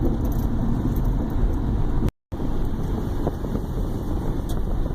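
Steady rumble of a car being driven, road and engine noise, which cuts out completely for a split second about two seconds in.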